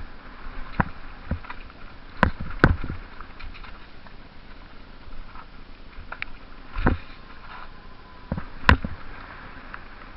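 Mountain bike clattering down a rough downhill trail: irregular sharp knocks and rattles from the bike over a steady rush of noise, with the hardest jolts about two and a half seconds in and near the end.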